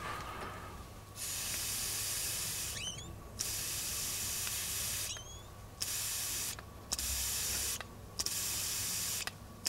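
Air blown by mouth through a small two-stroke generator carburettor's fuel inlet, hissing past the float needle valve. It comes in five rushes of a second or two each, stopping between them as the float is lifted and the needle valve shuts. This is the sign of a float valve that opens and seals as it should.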